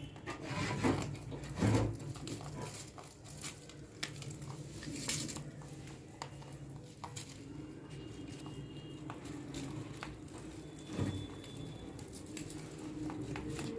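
A rabbit nibbling and shuffling through dry grass stalks: irregular soft clicks and rustles, with a few louder knocks, over a low steady hum.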